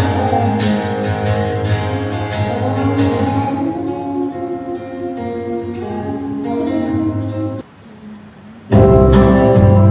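Acoustic guitar played live, with a singer's voice through a microphone and PA, until a little before the end. After a brief drop, louder music with heavy bass starts suddenly.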